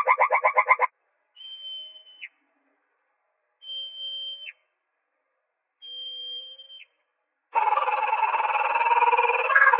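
A rapid rattling trill cuts off just under a second in, followed by three separate high whistled animal calls. Each call is a steady tone about a second long that drops sharply at its end. Near the end a loud, harsh, raspy call begins.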